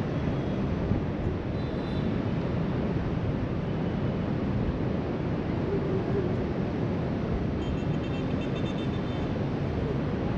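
Steady rush of distant surf breaking along the shore, mixed with wind blowing across the microphone.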